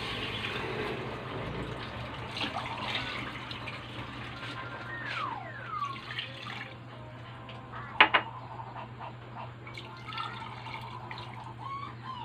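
Water poured from a drinking glass into a pot of raw chicken pieces, splashing and filling over the meat, glass after glass. A single sharp knock about eight seconds in.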